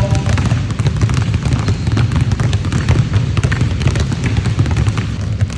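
Many basketballs being dribbled at once on a gym floor, a dense, uneven patter of overlapping bounces.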